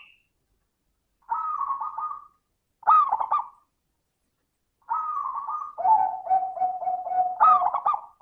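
Zebra dove (perkutut) cooing in three phrases with short pauses between them. The last phrase is the longest: a fast run of even, lower coo notes rising to a loud, higher final note near the end.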